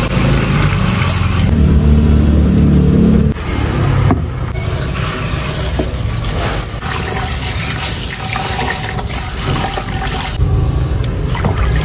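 Kitchen tap running into a stainless steel sink, first spraying onto rice in a plastic colander, then, from about four seconds in, splashing over bok choy leaves being rinsed by hand in a bowl.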